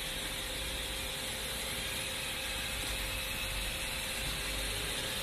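Steady hum and hiss of running workshop machinery, with a faint constant tone underneath and no distinct knocks or cutting sounds.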